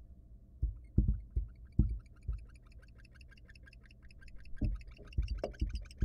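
Dull thumps on the wooden floor of a barn owl nest box as the owl shifts about, several in quick succession about a second in and again near the end. Over them runs a steady series of short, high ticks, about five a second, getting louder toward the end.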